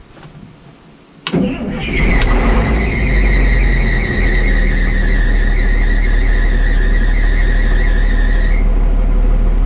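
Caterpillar D6D dozer's six-cylinder diesel cold-starting: a click about a second in, then the engine cranks, fires almost at once and settles into a steady loud run. A high whine rides over the engine and stops shortly before the end.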